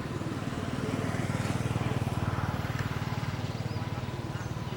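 A small engine running with a fast, even pulse, growing louder about a second in and easing off toward the end, as if passing by.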